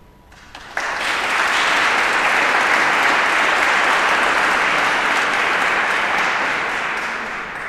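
Audience applauding: the clapping breaks out less than a second in, holds steady and begins to die away near the end.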